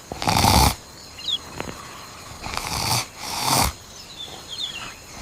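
Repeated loud, breathy snore-like sounds, one every two to three seconds, with faint high chirps between them.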